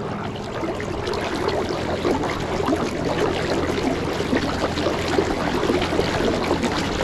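Water rushing and splashing along a kayak's hull as it runs at full speed under a Watersnake electric trolling motor; a steady wash that builds slightly in the first second.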